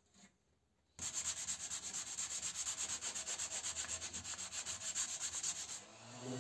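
Sandpaper rubbed by hand over pine board in quick, even back-and-forth strokes, starting abruptly about a second in and stopping near the end, where music comes in.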